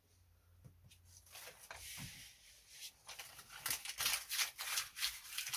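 Self-adhesive sealing tape and its backing film being peeled and handled: rapid scratchy rustling and crackling that grows louder through the second half.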